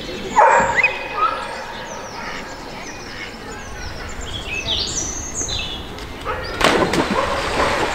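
Small birds chirping over steady outdoor ambience, with a short rising call about half a second in. About two-thirds through, a brief loud splash as a dog jumps into the lake.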